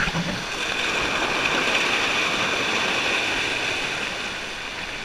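Ocean surf washing over a rock shelf into tidal pools: a rush of foaming water that swells about a second in and fades near the end.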